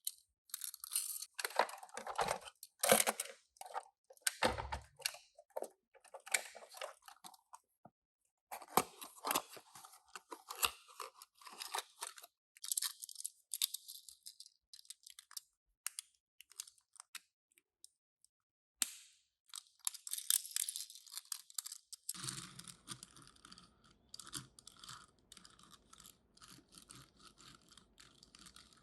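Toy packaging being opened and handled: crinkling, rustling plastic and cardboard with small clicks and taps, in irregular bursts with short pauses.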